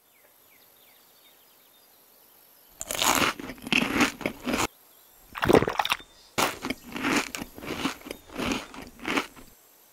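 Crunching and chewing of seeds being eaten, heard as a quick irregular run of crunchy bites that starts about three seconds in, after a faint hiss.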